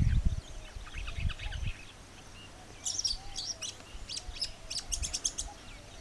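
A songbird chirping: a quick run of high notes about a second in, then a louder string of rapid, high chirps from about three seconds in to five and a half. A few low thumps near the start.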